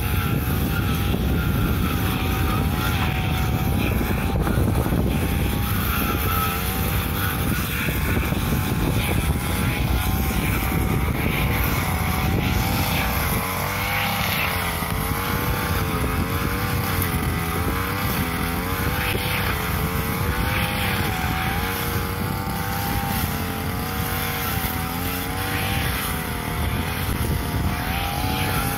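Backpack brush cutter's small petrol engine running at high speed while its blade cuts grass, the pitch rising and falling about once a second.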